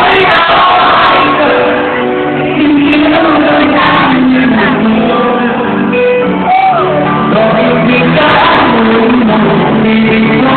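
Live pop music: a singer holding sung lines over a band, played loud.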